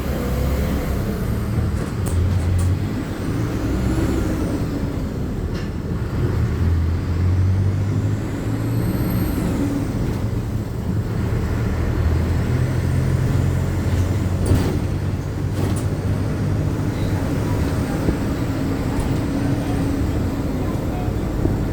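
Inside a moving city bus: the engine's low rumble rising and falling in pitch, with a few sharp rattling clicks from the cabin.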